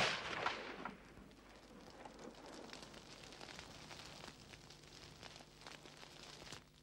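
Forest fire burning through trees and undergrowth: a dense crackle of burning wood and brush with many small sharp pops. It comes in as a louder sound fades during the first second.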